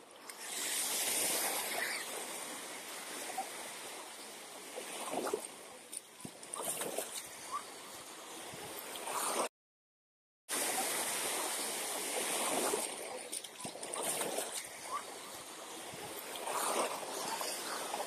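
Black Sea surf breaking and washing onto a sandy beach: a steady rushing wash that swells and eases. The sound cuts out completely for about a second midway.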